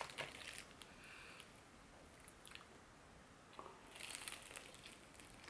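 Faint crunch of crispy fried chicken coating being bitten into about four seconds in, after a few soft clicks.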